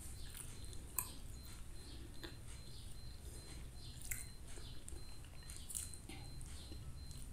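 Close mouth sounds of someone chewing soft cooked white rice: small wet smacks and clicks at irregular moments, with sharper clicks about a second in and around four seconds. A steady low hum lies underneath.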